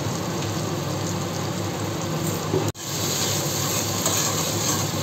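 Spice paste sizzling steadily in hot mustard oil in a steel kadai while it is fried down. The sound cuts out for an instant a little past halfway.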